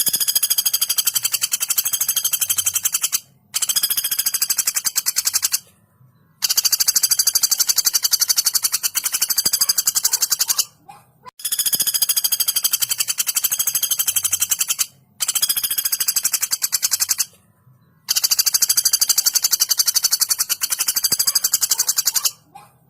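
Female common flameback woodpecker (pelatuk bawang) giving long, fast, tightly packed rattling calls, about six runs of rapid high notes, each several seconds long, with short breaks between.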